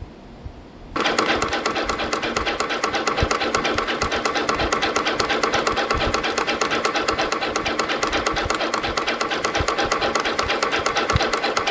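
CF-308 CNC spring-coiling machine starting about a second in and running steadily, coiling 0.4 mm wire into variable-pitch compression springs with a fast, even mechanical clatter.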